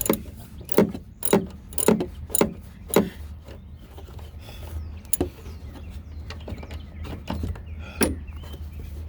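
Tool clanks on the strut's mounting bolts: a series of sharp knocks, about two a second for the first three seconds, then two more spaced out later.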